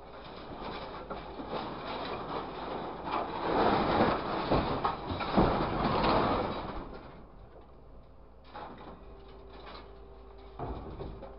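Scrap-handling machine's orange-peel grapple releasing loose steel turnings into a steel container: a dense metallic rustling clatter that builds to a peak in the middle, with a couple of sharp clanks. It then eases to the machine's steady hum.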